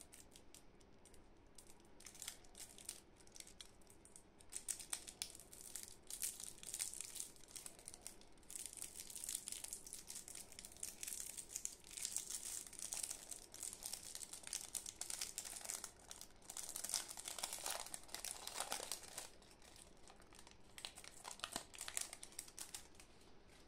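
Crinkling and crackling of plastic candy wrappers with twisted ends being worked open by gloved hands. The crackling comes in clusters that grow busier after the first few seconds and thin out near the end.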